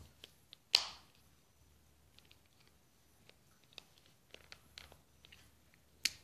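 A few sharp clicks over quiet room tone: a loud one just under a second in, another just before the end, and faint ticks between.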